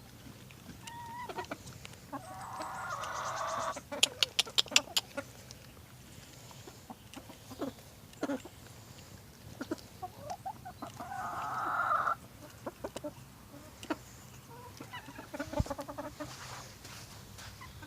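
Chickens clucking, with two longer, raspy calls and a quick run of sharp clicks about four seconds in.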